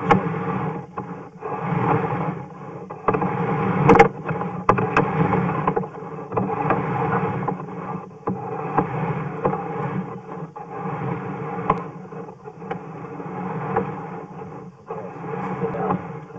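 Sewer inspection camera's push cable being pulled back out of the pipe: uneven rubbing and scraping that swells and dips every second or two, with a few sharp clicks, over a steady low hum.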